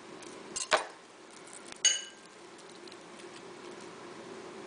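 Kitchen knife knocking on a cutting board while garlic cloves are worked: one sharp knock under a second in, then a short ringing metallic clink about two seconds in. A faint steady hum runs underneath.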